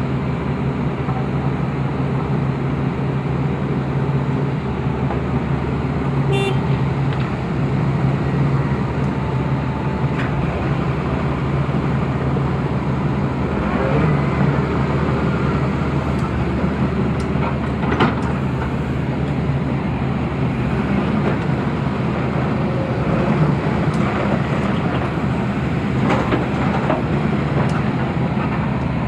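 Heavy diesel engines of a wheel excavator and a stuck road roller running in a steady drone, working to pull the roller out of deep mud.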